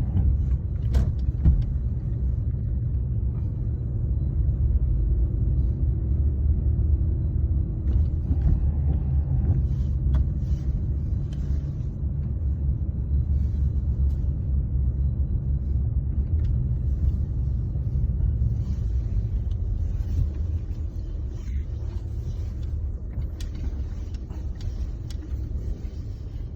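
Steady low rumble with a few faint clicks, easing off slightly near the end.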